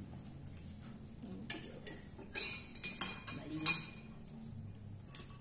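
Metal spoons and forks clinking and scraping on ceramic plates as several people eat, a string of short sharp clinks coming thickest in the middle, the loudest just before four seconds in.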